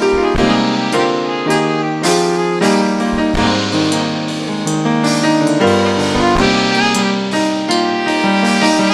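Instrumental music, led by piano or keyboard with saxophone, playing a slow melody of held notes.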